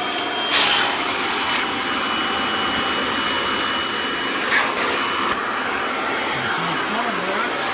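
Kirby Ultimate G upright vacuum motor running on high speed in tool mode, pulling air through the hose and crevice tool with a steady, noisy whine. It gives two brief louder rushes of air, about half a second in and about five seconds in.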